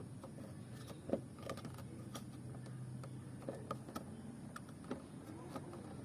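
Scattered light clicks and knocks of hand work on a car door, the sharpest about a second in, with a low steady hum lasting a couple of seconds in the middle.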